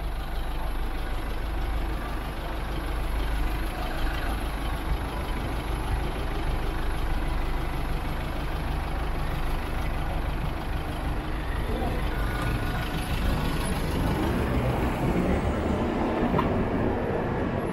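Busy city street traffic heard from a moving electric motorcycle: a steady low rumble of surrounding vehicles that barely rises or falls.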